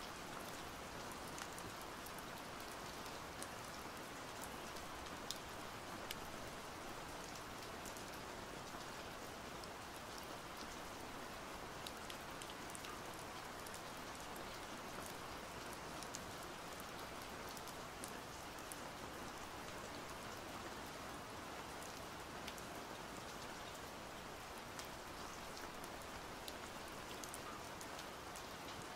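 Steady rain, an even hiss with many small drop ticks scattered through it.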